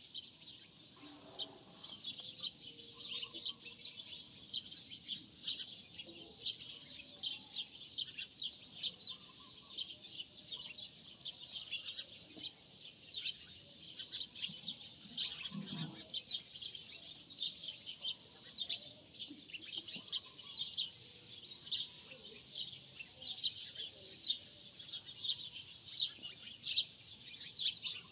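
A flock of small birds chirping continuously, many quick high chirps overlapping, with faint handling sounds underneath.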